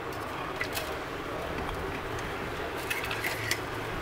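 A few light metal clicks and scrapes as the coiled wire spring from a MerCruiser Alpha drive's U-joint bellows is worked out through the gimbal housing, over steady background noise.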